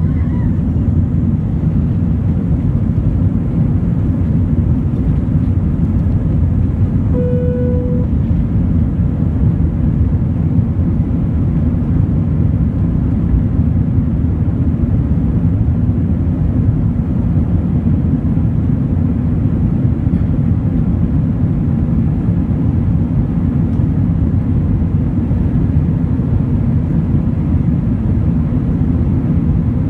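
Airbus A319-100 engines at take-off thrust during lift-off and climb-out, heard from inside the cabin as a steady loud noise. A brief single tone sounds about seven seconds in.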